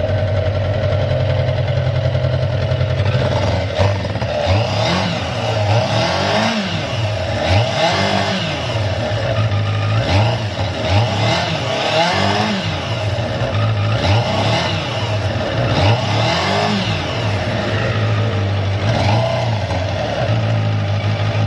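Suzuki GSX-R400 inline-four motorcycle engine idling, then revved repeatedly in quick throttle blips that rise and fall, before settling back to idle near the end. The seller presents it as idling stably with no abnormal noise.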